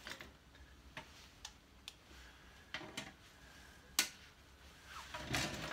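Scattered light metallic clicks and taps of a spanner and parts being handled at a motorcycle's clutch and primary drive, irregularly spaced, with a sharper click about four seconds in and some rustling near the end.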